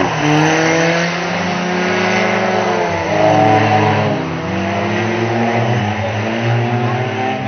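Several banger race cars' engines revving as the cars drive round the track, their pitches rising and falling over one another.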